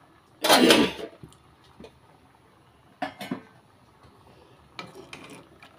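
Metal kitchen pots and utensils clattering: one loud clatter lasting under a second near the start, then a smaller clink about three seconds in and a few faint knocks near the end.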